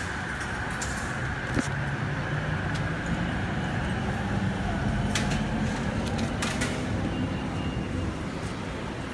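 Steady background rumble and hum of a busy rail station, with a faint high tone in the first couple of seconds. A handful of short sharp clicks fall through the middle.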